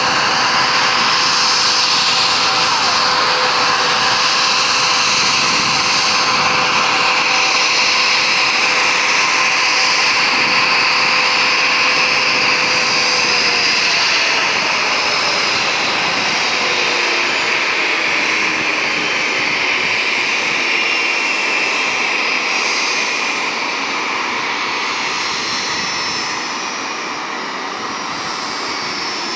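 Twin Rolls-Royce BR710 turbofans of a Bombardier Global Express business jet whining as it taxis. About halfway through, a steady tone slides lower in pitch and the sound slowly eases off.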